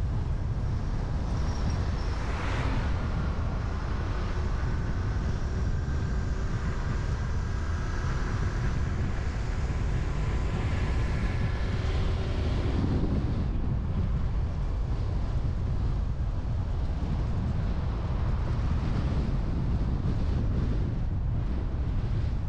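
Wind rumbling steadily on the microphone of a camera moving along a street, over light traffic noise. A passing vehicle briefly rises above it about two seconds in, and a faint whine comes and goes around the middle.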